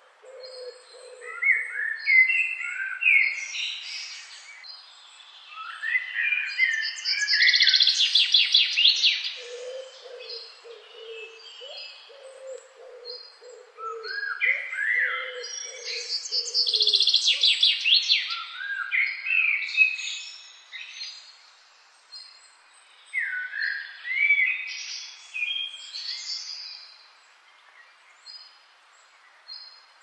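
Forest birdsong: phrases of quick rising notes and fast high trills come in bursts every several seconds. A bird's low repeated calls sound underneath at the start and again in the middle.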